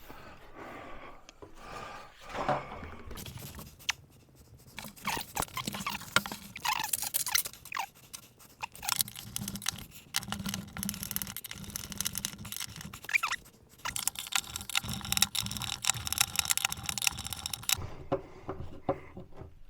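Irregular scraping and rubbing with small clicks and light knocks as a kitchen wall cabinet is handled and fitted, in several stretches with short quiet gaps between them.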